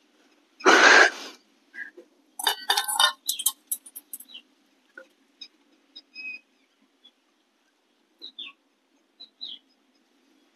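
A ripe mango being sliced with a knife and its halves pulled apart, heard as a loud rustling burst about a second in and then a cluster of wet crackling clicks. A few short bird chirps follow in the second half.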